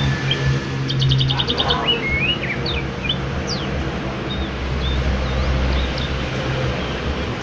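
Yellow-vented bulbul (trucuk) calling in short whistled and chirped notes, with a quick run of about ten ticking notes about a second in, over a steady low engine hum.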